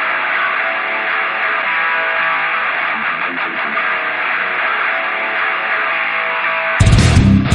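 Background music: a strummed guitar playing alone, then a louder heavy rock band with bass and drums comes in near the end.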